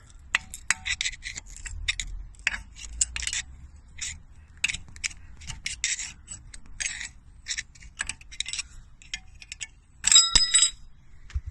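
Irregular metallic clicks and scrapes as a cover is worked off a disc brake caliper by hand and tool. About ten seconds in, a metal part rings briefly with a bell-like tone.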